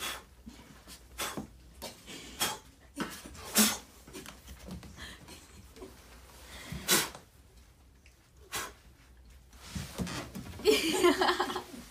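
Macaques moving close by: short, sharp clicks and taps at irregular intervals. A brief vocal sound comes near the end.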